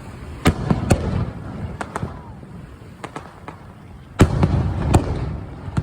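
Aerial fireworks bursting: a string of sharp bangs with crackling, three in quick succession about half a second in and the loudest about four seconds in, each followed by a low rumbling echo.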